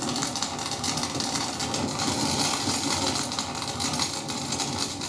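Recorded sound effect of a raging fire: a steady rush with dense crackling and popping throughout.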